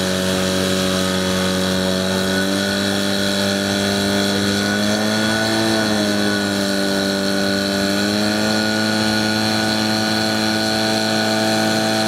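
Fire pump engine running steadily at high revs while pumping water to the hose lines. Its pitch sags about halfway through, as water starts to flow from the nozzles, and climbs back a couple of seconds later.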